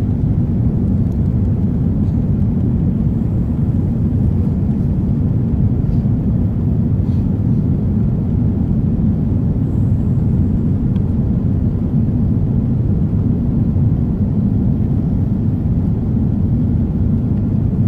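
Steady low rumble of airflow and engines inside the cabin of an Airbus A330-300, heard at a window seat over the wing during the descent.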